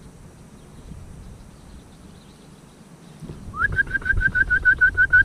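A rapid run of short, high whistled notes, about seven a second, starting about three and a half seconds in and running on past the end; the first note slides up.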